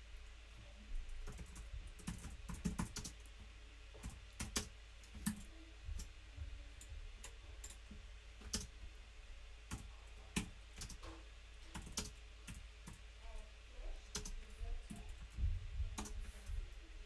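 Typing on a computer keyboard: uneven keystrokes in short runs with pauses between them, with a quick flurry near the end.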